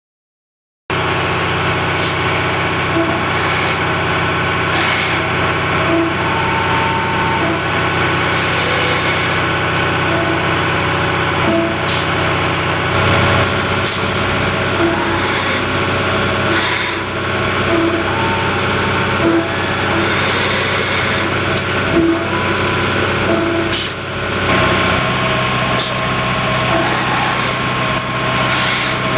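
Addison McKee DB75 CNC tube bender running under power: a steady machine hum made of several tones, with short tones and sharp clicks now and then as it works. The sound starts abruptly about a second in.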